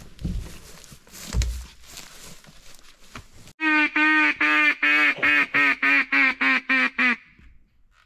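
Footsteps rustling through long grass, with two dull thumps, then a sudden run of about a dozen loud, nasal duck quacks at about four a second that stops a second before the end.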